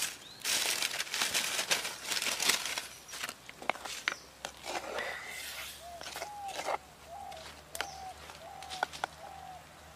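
Wood cooking fire crackling and rustling loudly for the first few seconds, then scattered sharp crackles. In the second half a bird calls, a short note repeated about every half second.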